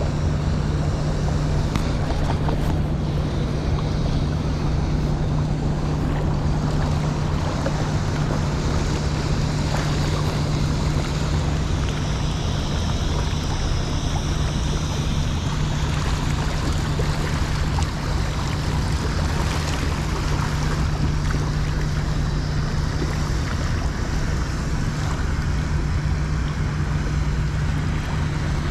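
Fast river current rushing steadily, with wind on the microphone and a constant low hum beneath.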